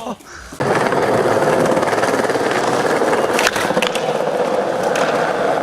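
Skateboard wheels rolling, a steady rolling noise that starts abruptly about half a second in, with a few light clacks about three and a half seconds in.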